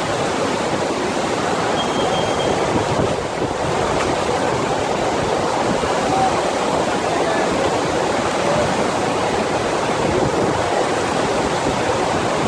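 Steady rush of water from a FlowRider standing-wave machine: pumped water pouring in a thin sheet over the ride surface, unbroken and even.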